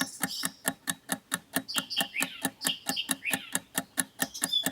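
Countdown-timer sound effect ticking evenly at about four to five ticks a second while the quiz answer is awaited, with short high chirps over the ticking.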